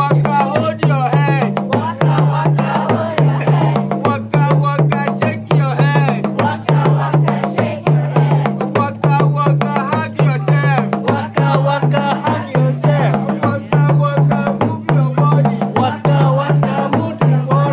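Background music with a steady, repeating drum beat under a wavering melody.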